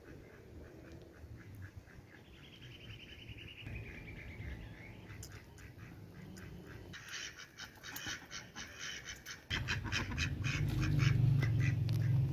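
Ducks quacking in quick, repeated calls over a low steady hum, loudest in the last few seconds. Before that, fainter bird calls, among them a descending trill a few seconds in.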